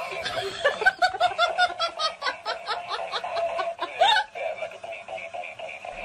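A person laughing in quick, rapid bursts over the steady electronic tune of a dancing Iron Man toy robot. The laughter stops about four seconds in and the toy's tune carries on.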